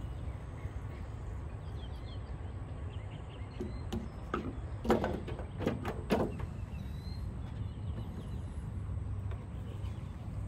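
A few knocks and clunks, the loudest about halfway through, as the fuel-tank filler cap and a fuel sampler cup are handled on top of a Cessna 172's wing. A steady low outdoor rumble runs underneath.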